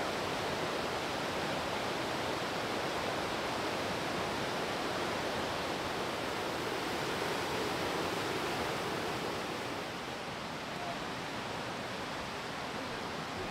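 Steady rush of fast-flowing water from a mountain creek or river, an even hiss that eases slightly about ten seconds in.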